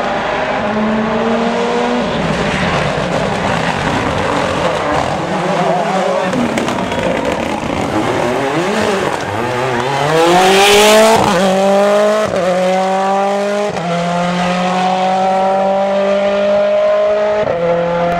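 Mini rally car coming through the bend and passing close, with a brief burst of noise as it goes by about ten seconds in. It then accelerates hard away, its engine pitch climbing and breaking at each of several quick upshifts.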